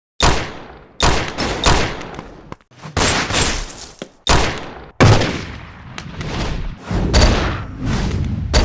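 Gunfire sound effects: about a dozen heavy shots at irregular intervals, each with a long booming, decaying tail.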